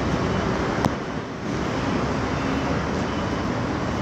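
Steady street traffic noise, with one sharp click a little under a second in.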